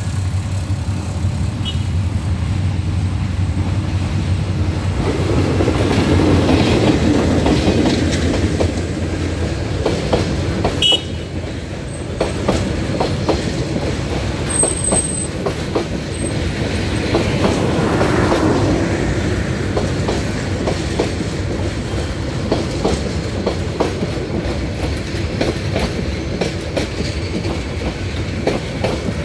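Intercity passenger train of Bangladesh Railway passing close by at speed: a steady rumble with the wheels clacking over the rail joints as coach after coach goes by.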